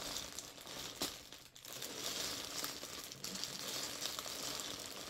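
Plastic packaging crinkling and rustling as it is handled, with a brief lull about a second and a half in.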